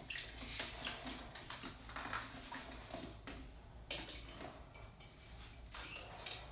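Irregular clinks, taps and rustling of mixing cups, paint tins and a stir stick being handled on a workbench while basecoat is made ready for the spray gun, with one sharper click about four seconds in.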